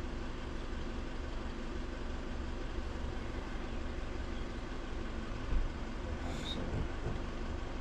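A motor vehicle running close by, a steady low hum, with a brief knock about five and a half seconds in.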